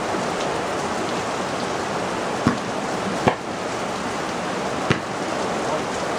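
Heavy rain falling steadily, with three sharp thuds about two and a half, three and a third, and five seconds in.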